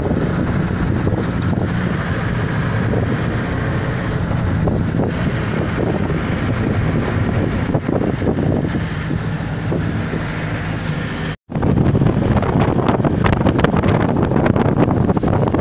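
Steady engine and road noise of a moving bus heard from inside the cabin, with a low constant hum. About eleven seconds in the sound cuts out for a moment, then comes back louder with wind buffeting the microphone.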